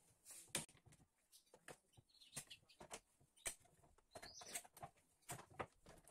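Quick-release bar clamps being loosened and taken off a glued wooden panel and set down on the workbench: a quiet series of light clicks, knocks and clatters of the clamps' jaws and bars. A few brief high chirps come about two seconds in and again midway.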